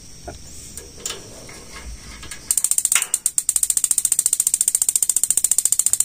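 Spark igniter of a gas instant water heater ticking rapidly at the burner electrodes, about ten sharp ticks a second, starting about two and a half seconds in. This is the ignition stage of a normally working heater, sparking just before the gas solenoid opens.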